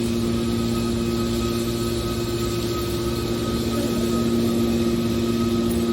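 Hydraulic metal baler's power unit, its electric motor and pump running with a steady hum.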